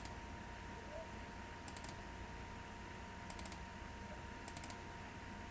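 Faint clicking at a computer, in short clusters of two or three clicks about every one and a half seconds, over a steady electrical hum.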